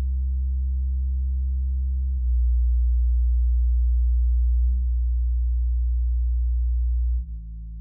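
Low bass test tones played through a small studio monitor, each held steady for about two and a half seconds before stepping to a new pitch. After the last change, near the end, the tone gets noticeably quieter.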